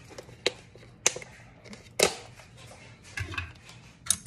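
A plastic tub of pork floss being handled and opened, giving about five sharp plastic clicks and knocks, the loudest about two seconds in.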